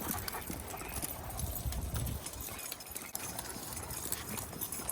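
Footsteps while walking: irregular light clicks and knocks over a steady low rumble.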